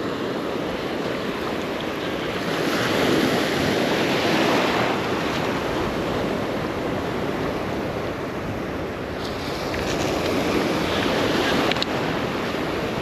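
Surf breaking and washing onto the beach, swelling louder twice, with wind buffeting the microphone.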